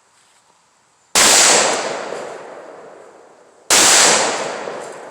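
12-gauge shotgun fired twice, about two and a half seconds apart, each loud blast echoing and dying away over a couple of seconds.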